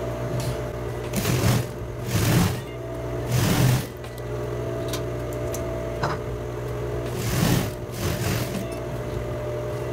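Sewing machine stitching a folded hem in several short runs of about half a second each, over a steady hum.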